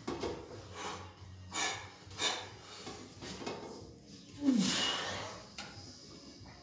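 A weightlifter's hard, forceful breathing during a heavy barbell bench press: a string of short, sharp breaths about once a second, then a longer breath with a short grunt about four and a half seconds in.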